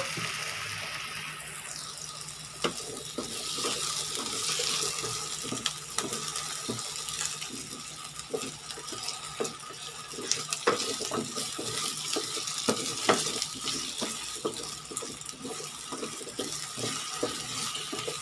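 Potato and carrot chunks sizzling in oil in a nonstick frying pan, with a wooden spatula clacking and scraping against the pan as they are stirred and turned; many short, irregular knocks over a steady hiss.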